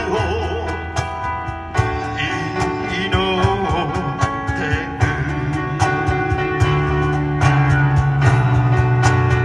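A song with a singer over guitar and a sustained bass line, with a steady beat of short percussive clicks.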